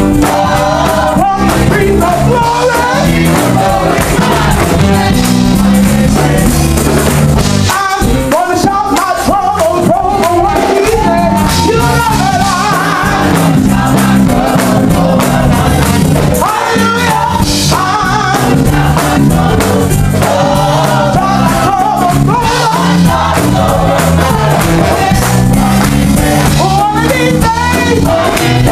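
Gospel choir singing loudly with a woman lead singer on microphone, the choir clapping along, over a band's steady bass line. The bass drops out briefly about eight seconds in, then comes back.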